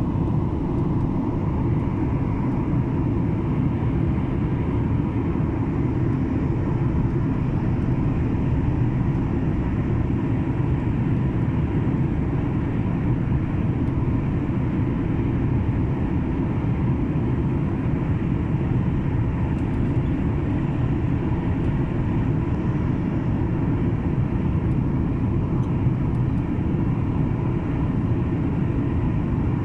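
Jet airliner cabin noise from a Skymark Boeing 737-800: a steady low rumble of engines and airflow, with a faint steady whine above it.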